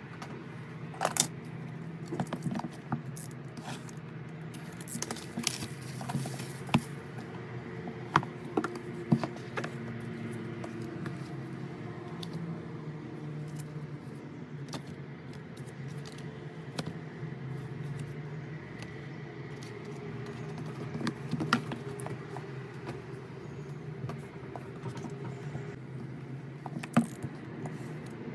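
Album packaging and its contents being handled: scattered small clicks, taps and rattles at irregular intervals over a steady low background.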